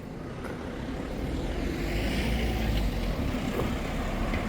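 Motor vehicle going by: a low rumble and road noise that swell to a peak about two seconds in, then ease off.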